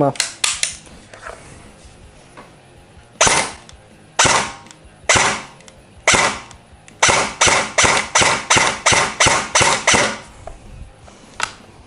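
ELS-74 MN Gen 2 airsoft electric rifle firing BBs through a chronograph, about a dozen sharp gearbox shots. The first four come about a second apart, then the shots speed up to two or three a second.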